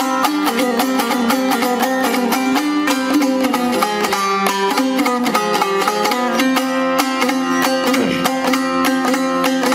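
Dutar, a two-stringed long-necked lute, played solo with fast, even strumming: a running melody over a steady open-string drone, with no singing.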